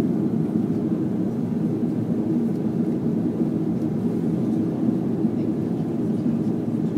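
Steady low roar of an Airbus A380 heard inside the passenger cabin: engine and airflow noise during the climb after takeoff.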